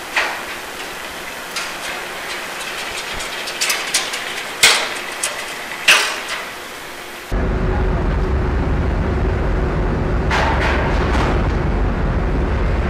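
Sharp bangs and knocks with a ringing tail as steel ship hulls strike and grind against each other in a collision, about five in the first seven seconds. About seven seconds in, the sound cuts abruptly to a loud, steady low rumble, with a few more knocks near the end.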